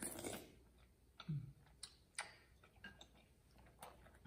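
A short slurp of glass noodles sucked in from chopsticks, then close-up chewing with a few sharp, scattered wet mouth clicks.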